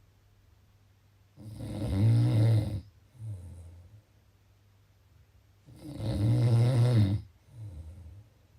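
Snoring in a steady sleep rhythm: two long, loud, rattling snores about four seconds apart, each followed by a shorter, softer breath.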